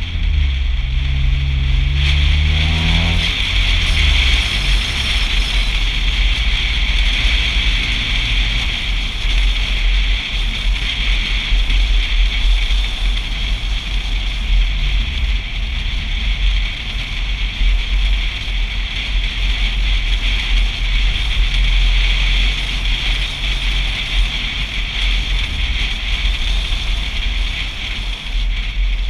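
Wind buffeting a GoPro mounted on the outside of a moving car: a steady, loud rush with a heavy low rumble. During the first three seconds an engine note climbs in pitch as the car accelerates.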